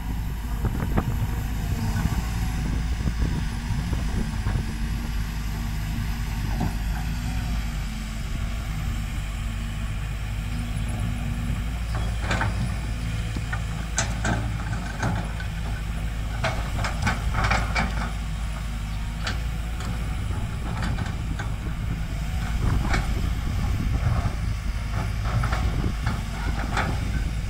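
Kobelco SK200 tracked excavator's diesel engine running at a steady speed while the machine digs and swings. From about halfway through come many short, sharp knocks and clanks.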